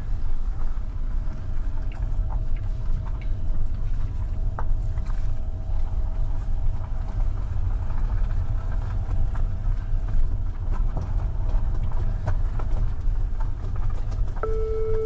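Car rolling slowly along a rough, unpaved lane, heard from inside the cabin: a steady low rumble of engine and tyres with scattered small clicks from stones under the wheels. Near the end a steady electronic warning tone starts.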